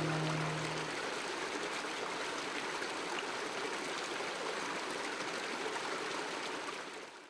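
Mountain creek running with a steady rushing trickle, fading out at the very end. A held music chord dies away under it about a second in.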